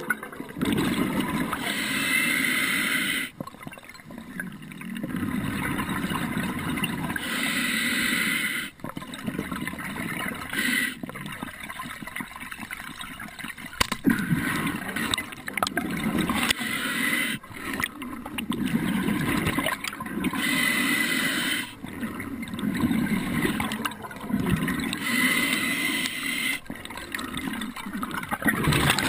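Scuba diver breathing through a regulator underwater: a hiss of about two seconds on each inhale, coming back roughly every five seconds, alternating with bubbling, gurgling exhales. A few sharp clicks fall in between.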